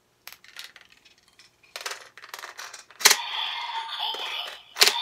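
DX Evol Driver toy belt: a run of small plastic clicks as Evolbottles are handled, then about three seconds in a bottle snaps into its slot and the belt's speaker plays an electronic sound effect. Another loud snap comes near the end.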